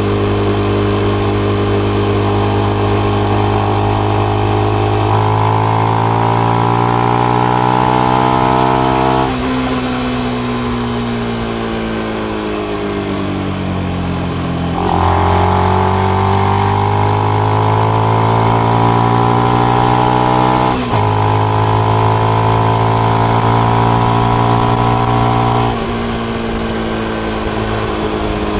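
Benelli BN125's single-cylinder 125 cc four-stroke engine running through its stock exhaust with the dB killer fitted. Its note keeps changing with the throttle: it steps up about five seconds in, sinks away for several seconds, jumps and climbs again, dips briefly once, and drops back near the end.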